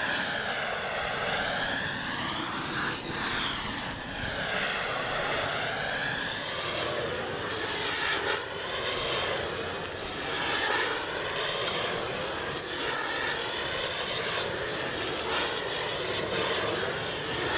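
Large propane shrink-wrap heat gun burning with a steady rushing noise, its tone sweeping up and down repeatedly.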